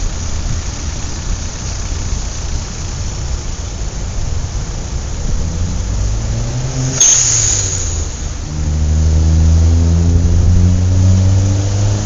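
City street traffic rumbling, with a vehicle's engine rising in pitch as it accelerates. About seven seconds in there is a short sharp hiss, and then a loud engine runs close by with a steady low drone near the end.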